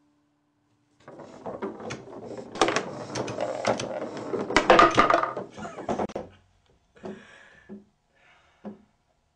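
Foosball table in play: a fast, dense clatter of spun rods and plastic players knocking the ball. Near the end come a few separate knocks.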